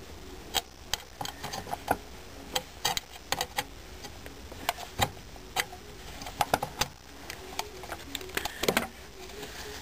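Screwdriver turning out one of the two screws that hold a keyboard's control circuit board, giving irregular small clicks and ticks.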